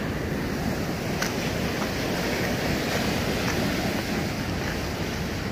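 Steady rushing of sea waves washing on the shore, with wind noise on the microphone.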